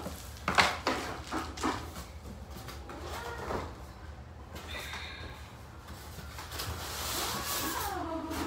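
Unboxing a cardboard printer box: several sharp knocks and rustles of the box and packing in the first couple of seconds, then a styrofoam packing insert rubbing against the cardboard as it is lifted out near the end. A short gliding voice-like sound comes about three seconds in and again near the end.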